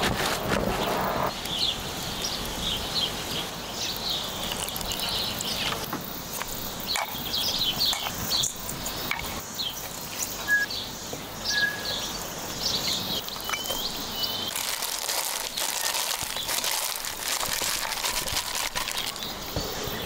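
Small birds chirping repeatedly over an outdoor background, with scattered clicks and crackles throughout. About three-quarters of the way in, a high, steady hiss grows stronger.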